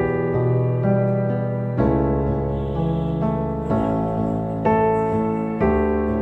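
Slow background music on a keyboard: soft, held chords, a new chord about once a second.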